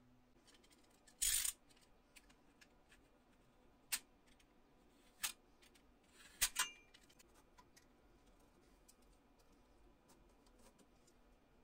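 Metal parts being handled on a workbench: a few sharp clanks and clicks spaced a second or more apart, the loudest about a second in. A quick double knock near the middle ends in a brief metallic ring.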